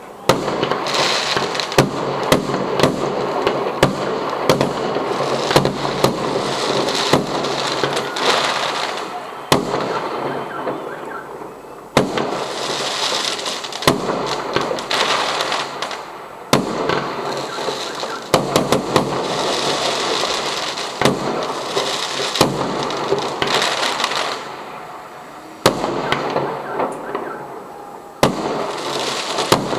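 Fireworks display: many sharp bangs over a dense crackle, the crackle fading away and fresh volleys of bangs starting up again several times.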